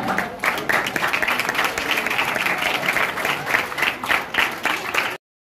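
Audience applauding, many hands clapping at once, cutting off suddenly near the end.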